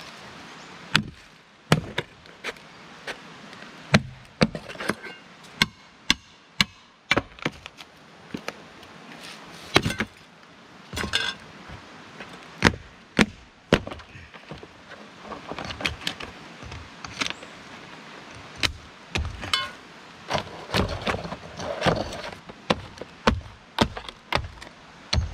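Irregular series of sharp knocks and blows on wood, like a tool striking wooden posts, coming roughly once or twice a second with short pauses, some blows ringing briefly.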